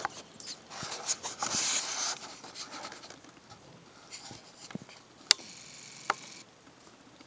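Light scattered taps and scratches on a hard tile floor, with a single sharp click about five seconds in, from a blue crab's legs and claws shifting on the tiles.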